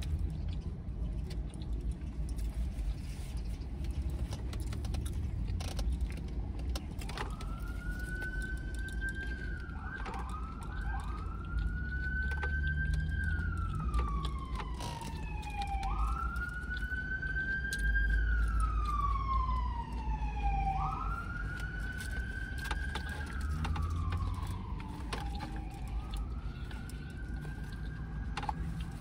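An emergency vehicle's siren wailing, starting about seven seconds in: each cry rises quickly and falls slowly, repeating every four to five seconds and fainter near the end, over a steady low rumble.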